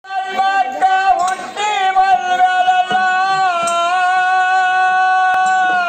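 A singer of a Kannada dollina pada folk song holding long, high sung notes, the pitch bending a little in places and then held steady for the last couple of seconds, with a few sharp clicks over it.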